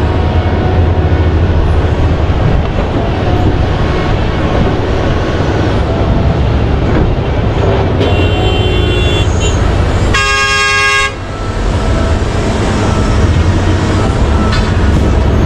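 Heavy diesel mining machinery running with a steady low rumble. About ten seconds in, a horn sounds once for about a second, with a few faint high beeps just before it.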